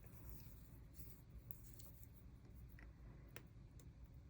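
Near silence with faint paper handling: stickers being peeled and pressed onto a journal page, with a few small ticks, the sharpest about three and a half seconds in.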